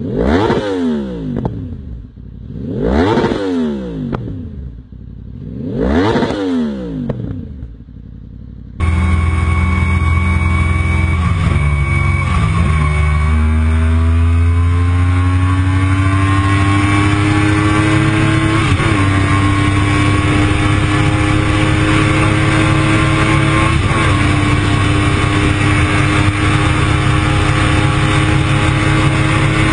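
Yamaha R1 crossplane inline-four with a full Akrapovič exhaust revved three times, each rev rising and falling in pitch. After a sudden cut about a third of the way in, it runs continuously under way at speed, its pitch dipping once, then climbing slowly and holding steady.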